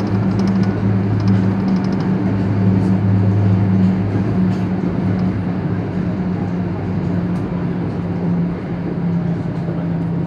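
Passenger train running at speed, heard from inside the car: a steady rumble with a low hum under it and a few light clicks.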